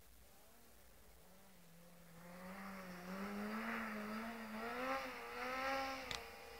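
Engine of a small off-road buggy driven through snow, rising out of near silence about two seconds in and growing louder as it approaches, its pitch wavering up and down with the revs. A brief sharp click near the end.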